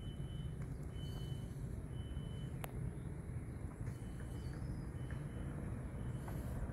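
Outdoor ambience: a steady low rumble, with faint short high-pitched chirps about once a second and a single sharp click about two and a half seconds in.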